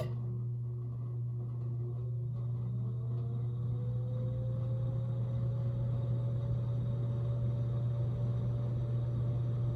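Emerson Northwind 29-inch ceiling fan motor starting up on high speed: a steady low hum with a motor whine that rises in pitch over the first few seconds as the fan spins up, then holds steady.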